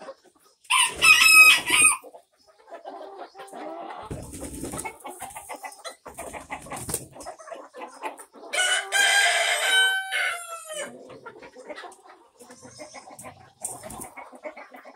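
Roosters crowing twice, a short crow about a second in and a longer one about nine seconds in that ends on a falling note, with hens clucking around them.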